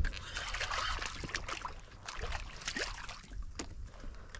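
Light water splashing at the surface beside a kayak, busiest in the first second, with scattered small knocks and clicks.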